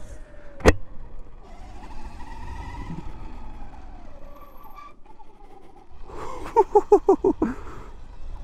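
Sur-Ron electric dirt bike ridden over a dirt track: a steady low rumble, with a faint electric motor whine that rises and falls. A sharp knock comes under a second in. About six seconds in, the rider gives a quick string of about seven short grunts, the loudest sound.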